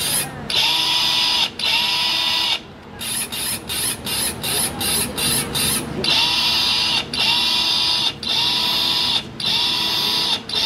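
Electronic dance music with a harsh, buzzing synth in a chopped rhythm: short stabs about three a second, then held buzzing notes about a second long with short gaps between them.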